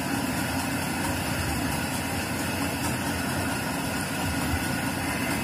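Steady low background hum and hiss with no distinct event.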